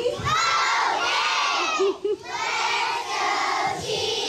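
A large group of young girls shouting a cheer together in two long calls, with a short break about two seconds in.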